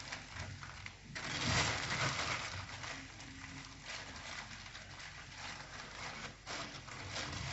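Kitchen handling noise: a steady scratchy rustle that starts about a second in and stops about six and a half seconds in.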